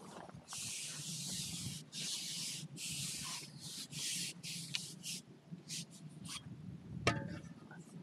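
A carbon fishing pole being fed out, rubbed through the hand in a series of hissing swishes that get shorter and quicker towards the end. A sharp knock comes near the end.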